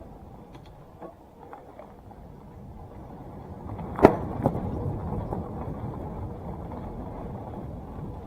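2017 Salsa Timberjack NX1 mountain bike rolling over a dirt trail: steady tyre and rattle noise that grows louder about three seconds in as it picks up speed, with a sharp knock about four seconds in and a smaller one just after.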